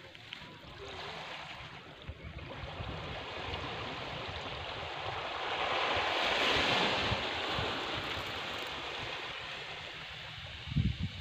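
Sea waves washing onto a beach as a steady hiss, one wash swelling louder about six seconds in and then easing off. Wind buffets the microphone with low rumbles, stronger near the end.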